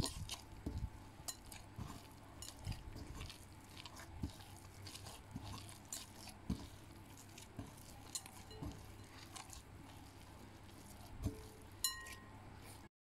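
Hand kneading soft, oily yeast dough in a glass bowl: faint, irregular squelches and slaps of the sticky dough, with light knocks and clinks against the glass.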